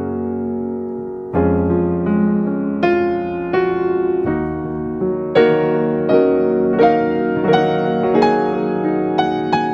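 Background music: gentle piano or electric-piano melody with sustained chords and notes struck about once or twice a second.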